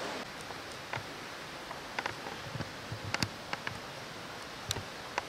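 Scattered light crackles and clicks of dry leaf litter and twigs, as from slow, careful steps on a leaf-covered forest floor, over a steady outdoor hiss.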